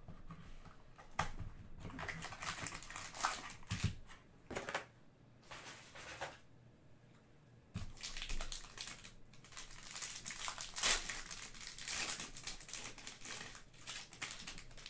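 Foil wrapper of an Obsidian Soccer trading-card pack crinkling in irregular bursts as it is torn open and peeled off the cards by hand. The crinkling is thickest and loudest in the second half.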